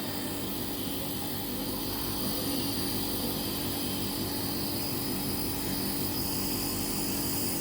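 Nebulizer's small electric compressor running with a steady hum.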